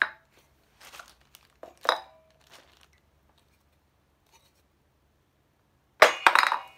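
Hammer knocking on a glass LED filament bulb inside a zip-lock plastic bag on a wooden floor, with the bag crinkling. There is a sharp knock at the start, a few lighter knocks in the next two seconds, then a quick run of several loud knocks about six seconds in; the bulb is not yet broken.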